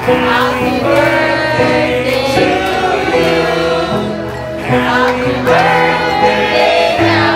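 Music: a song with singing over held bass notes.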